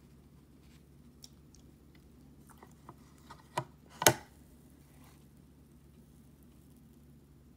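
Plastic lid of a Nostalgia mini electric waffle maker being lowered and pressed shut over the batter: a few light clicks, then a sharp click and, half a second later, a louder clack as the lid closes.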